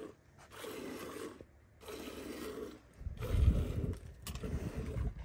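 Cow being hand-milked, the milk squirting into a metal pail in hissing bursts about once a second. A louder, low rumble comes about three seconds in.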